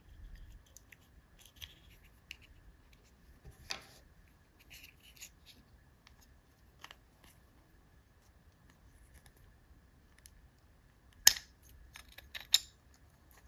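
Small camera parts being handled and pulled apart: a plastic housing working loose from a finned aluminium heatsink shell, with scattered light clicks and scrapes. There is a louder click about four seconds in and a few sharp clicks near the end.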